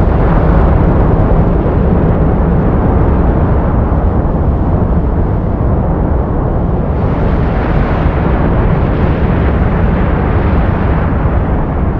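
Loud, steady rush of wind buffeting a GoPro microphone mounted on an FPV drone flying fast in strong wind, heaviest in the low end. It turns brighter and more hissy about seven seconds in.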